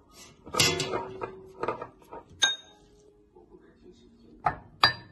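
A utensil clinking and knocking against a ceramic mug as meat is stirred in its marinade: a few separate clinks, one ringing clearly about two and a half seconds in, and two more near the end.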